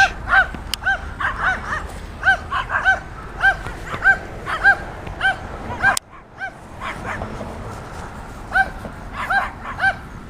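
Small dogs barking over and over in short, high-pitched yaps, about two a second, with a brief lull a little past the middle; the dogs are agitated.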